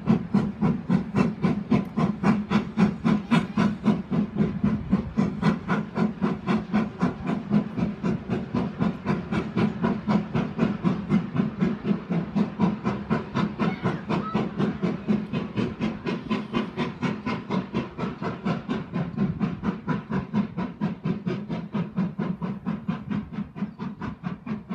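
GWR 7800 Class 'Manor' steam locomotive working hard under steam, its exhaust beats coming evenly at about four to five a second, fading near the end as it draws away.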